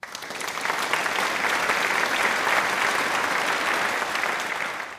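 A crowd applauding: a dense, steady patter of many hands clapping that swells up quickly, eases slightly near the end and cuts off abruptly.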